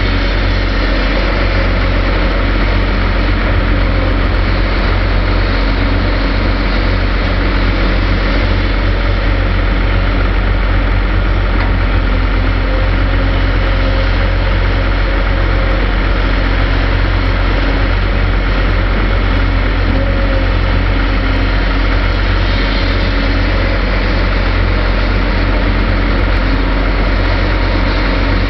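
Volvo EC460CL crawler excavator's diesel engine and hydraulics running steadily under working load while it digs and swings, with a faint whine that comes and goes.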